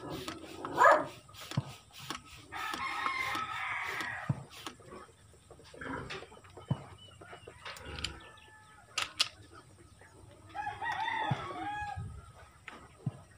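A rooster crowing twice, each crow about two seconds long, about three seconds in and again near eleven seconds in. A sharp clack about a second in is the loudest sound, with scattered light clicks and knocks between.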